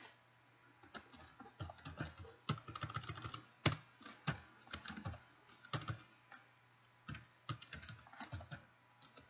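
Typing on a computer keyboard: clusters of quick key clicks with short pauses between them.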